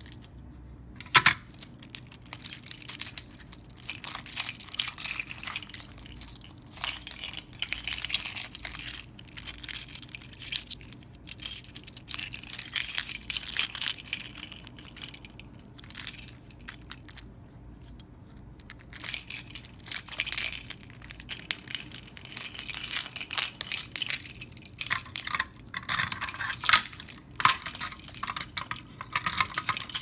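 A ring of metal keys jangling and clinking in the hand in irregular bursts with short pauses, with one sharp clink about a second in.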